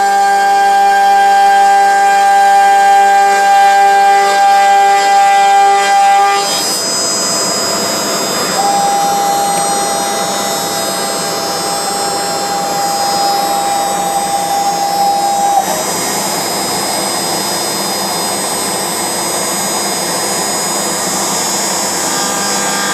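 Homemade CNC router with a Chinese spindle machining oak. For about six seconds there is a steady whine of several tones. Then a rough, noisy cutting sound takes over as the bit works the wood, with one steady tone holding for several seconds in the middle.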